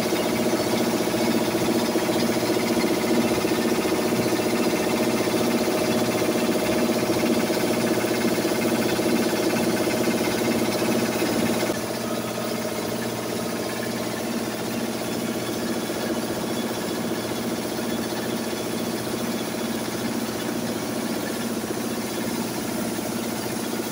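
Posho mill (maize hammer mill) running steadily while grinding maize into flour, a loud, even machine drone with a steady beat. About halfway through, it becomes a little quieter and its tone changes.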